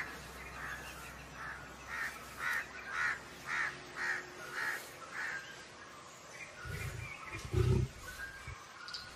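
Crows cawing in a quick run of calls, about two a second, for the first five seconds. About seven seconds in comes a deep, low lion grunt, the loudest sound here.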